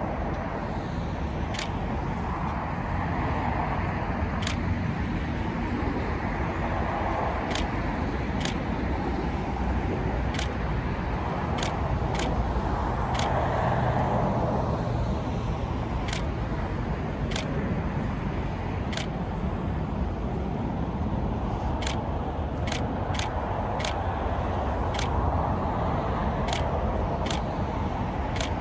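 Steady outdoor rumble of road traffic and airport noise that swells and fades slowly, with faint sharp ticks coming irregularly, about one every second or two.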